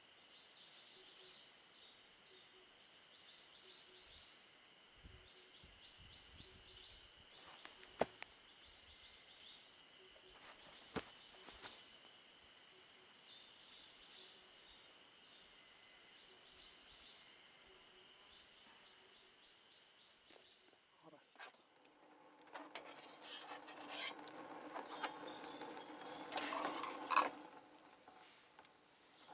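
Woodland ambience: a small creature's repeated phrases of quick high chirps over a steady high-pitched whine, with two sharp clicks. Near the end a louder rustling, crackling noise with scattered clicks takes over.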